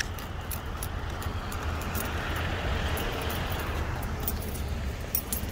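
A car passing on the road alongside, swelling and fading over a couple of seconds, over a steady low rumble, with scattered light jingling clicks as the person walks.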